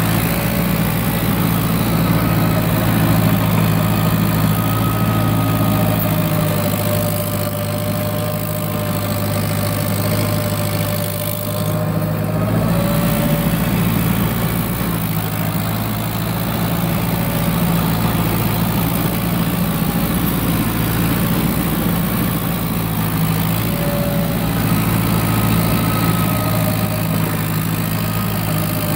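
Tractor engine running steadily under heavy load, powering an ARPS snow blower whose auger is driven straight off the PTO shaft, as it cuts through deep, heavy snow and throws it from the chute.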